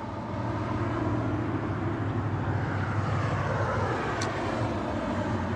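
A vehicle passing by on the road, its pitch sliding downward as it goes past, over a steady low hum.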